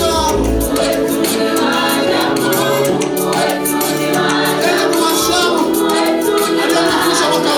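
Live gospel praise music: a group of voices singing together over instruments, with a quick shaking percussion beat such as a tambourine.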